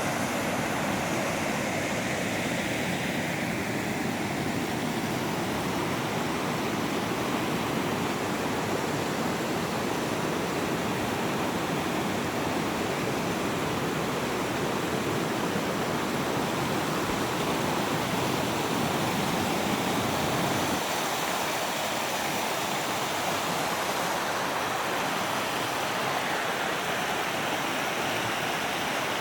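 Small waterfall: a steady, dense rush of falling and splashing water. About two-thirds of the way through, its deeper rumble drops away and it sounds lighter.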